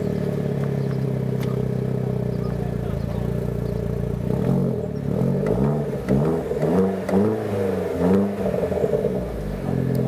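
Opel Adam S's tuned 1.4-litre turbocharged four-cylinder petrol engine, breathing through a Friedrich Motorsport cat-back exhaust. It idles steadily, then is blipped several times in quick succession, each rev rising and falling back. The sound at the tailpipes is deep and sonorous ("richtig sonor").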